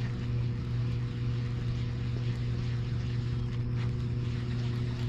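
A steady low hum with a few overtones, unchanging in level throughout.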